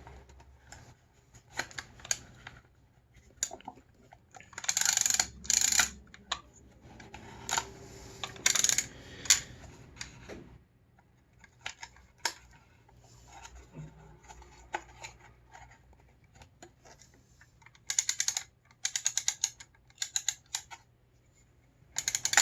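Handling noise from a Lubitel twin-lens reflex camera as 120 roll film is worked into the slot of the take-up spool. Scattered small clicks and rustles are broken by flurries of rapid clicking about a quarter of the way in, again near the middle, and once more near the end.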